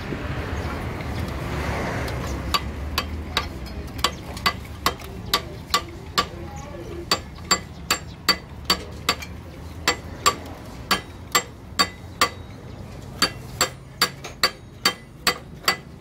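Steel hammer blows on the steel shafts of a Hino truck's manual gearbox: a long steady run of sharp taps, about two to three a second, each with a short metallic ring. The blows start a couple of seconds in and break off briefly twice, as a part is knocked into place on a shaft.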